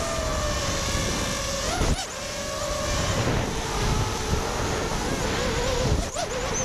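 RaceBlade FPV racing quadcopter's brushless motors whining, the pitch wavering up and down, over wind rush on the onboard camera. Near the end come knocks as the quad hits the ground in the heavy crash that sheared its aluminium arm bolts.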